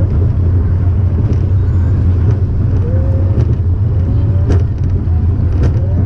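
Onboard a Wacky Worm family roller coaster: a steady, loud low rumble of the car's wheels running along the steel track, with a few sharp clacks in the second half.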